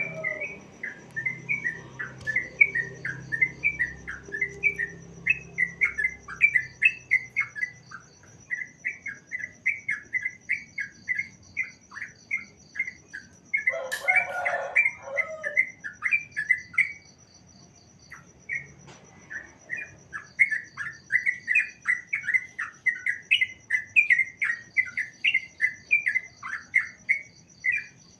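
Sooty-headed bulbul (trucukan) singing: quick runs of chirping notes, pausing for a couple of seconds about two-thirds of the way in. A brief harsher, noisier sound comes about halfway through, and a steady high pulsing tone runs underneath.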